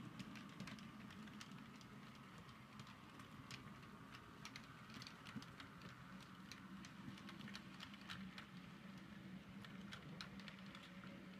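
Model train of the Rhaetian Railway ABe 504 railcar and its coaches running along the layout track. Its wheels give faint, irregular clicks over the rail joints and points, over a low steady motor hum.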